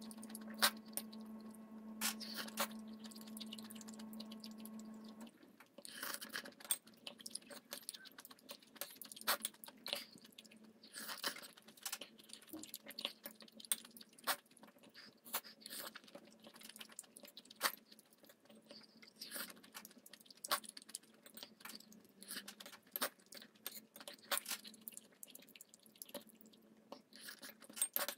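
Close-up eating sounds: chewing ramen noodles and vegetables, with a metal spoon clicking and scraping against a ceramic bowl in many short, irregular clinks. A steady low hum sits underneath for the first five seconds or so, then drops away.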